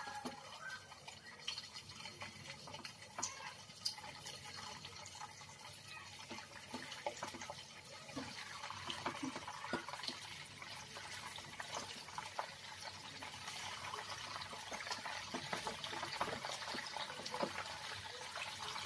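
Cornflour-coated chicken pieces deep-frying in hot oil: a steady sizzle full of small crackles and pops, growing slightly louder toward the end.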